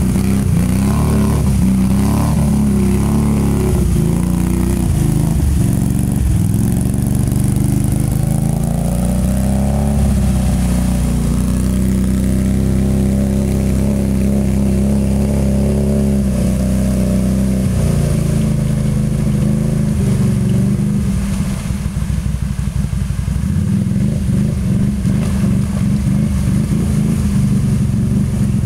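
Can-Am Renegade 500 ATV's single-cylinder engine revving as it drives through creek water, its pitch rising and falling. About three-quarters of the way in it drops to a lower, uneven run. Water splashes around the wheels throughout.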